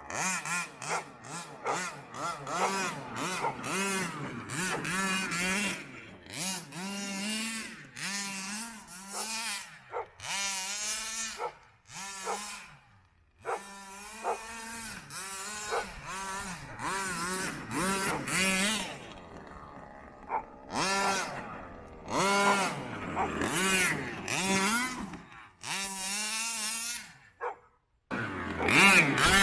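Rovan BM5 1/5-scale gas RC monster truck's two-stroke engine revving up and down again and again as the truck is driven, dropping out briefly about twelve seconds in and again near the end.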